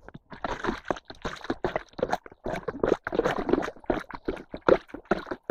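Muddy water sloshing and splashing in a rapid, irregular run as a mesh sieve full of bottom silt is shaken in an ice hole, washing the mud out to leave the bloodworms.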